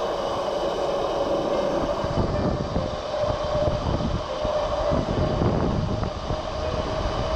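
Fat bike tyres humming on bitumen while riding, a steady drone that wavers slightly in pitch, with wind buffeting the microphone from about two seconds in.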